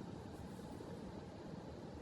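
Steady low hiss of room noise, with no distinct handling sounds.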